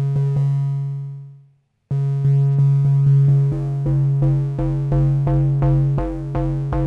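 Moog Muse analog synthesizer playing a low FM bass note, with oscillator 2 frequency-modulating oscillator 1 and the filter envelope opening and closing the FM amount. Each strike has a slappy, metallic attack. After a brief gap the note is struck again about three times a second, and its overtones change about three seconds in as a knob is turned.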